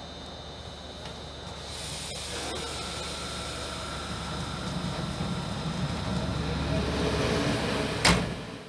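ÖBB Taurus electric locomotive passing close on the rails, a steady hiss and rumble that grows louder as it nears. A sudden loud knock comes near the end.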